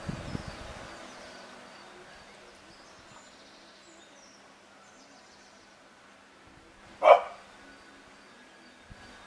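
A dog gives a single short, sharp bark about seven seconds in, while playing with another dog. Faint low thumps sound in the first second.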